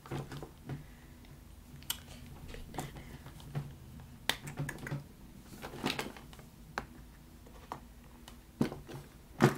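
Irregular sharp clicks and taps from hands fidgeting with small objects, with the loudest clicks near the end.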